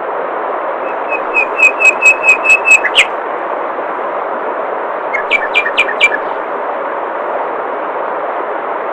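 Steady rush of flowing water with a songbird calling over it: a run of about eight repeated sharp whistled notes about a second in, ending in a quick sweep, then a shorter, faster run of notes about five seconds in.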